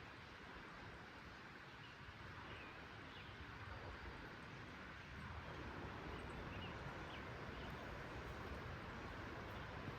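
Creek water rushing steadily, swelling a little louder about halfway through, with a few faint bird chirps.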